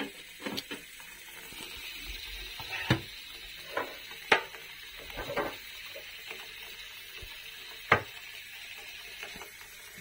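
Scattered clicks and knocks of kitchen items being handled at a sink, about half a dozen of them and irregularly spaced, the sharpest a little after four seconds and near eight seconds.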